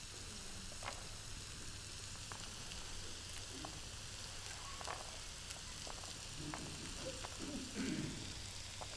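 Faint steady hiss of room tone with scattered small clicks and crackles as a pomegranate is broken apart by hand and its seeds picked off, and a faint low murmur near the end.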